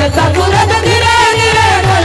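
Devotional kirtan music: a woman's voice holds a long, ornamented sung note over steady drum strokes at about four a second.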